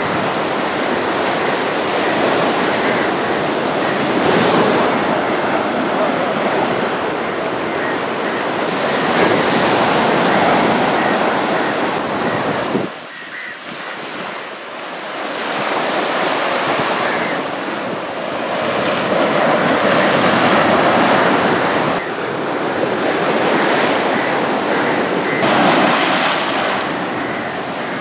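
Sea waves breaking and washing up the shore, the surf swelling and easing every few seconds. It drops suddenly about halfway through, then builds again.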